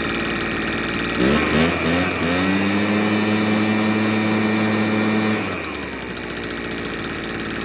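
Echo PB580T backpack blower's two-stroke engine running warm after a hot restart, its low-speed jet turned in to cure hot-start flooding. About a second in it speeds up with a rising pitch and holds a steady higher speed, then drops back to idle after about five seconds.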